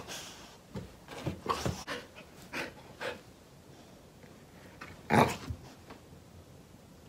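A dog wriggling and rolling on its back on a blanket, making a string of short breathy noises, the loudest about five seconds in.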